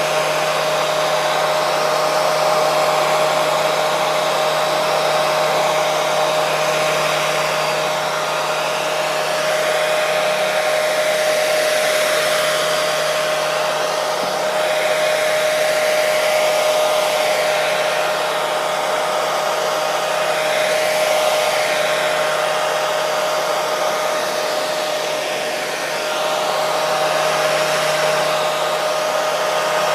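Hair dryer running continuously: a steady rush of air with a constant motor whine, the level swelling and easing slightly every few seconds.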